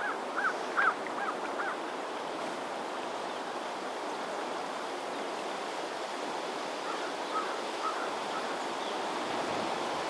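Steady wind noise over open grassland, with a quick run of about five short high chirps in the first two seconds and a few fainter chirps about seven to eight seconds in.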